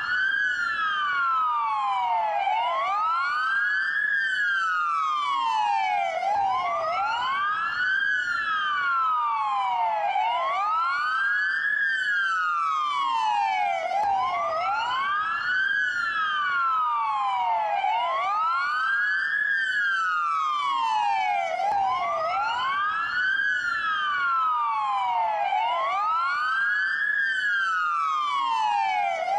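Police dual wail siren: two wail tones each rising and falling slowly, out of step with each other, every full sweep taking about four seconds. Steady and continuous, with no pause.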